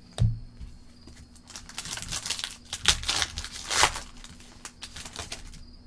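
Foil trading-card pack wrapper being torn open and crinkled, a dense run of sharp crackles and rustles that is busiest between about one and a half and four seconds in, then trails off.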